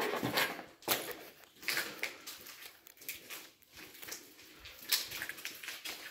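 Footsteps crunching and scuffing over debris and grit on a concrete floor, a step about every second.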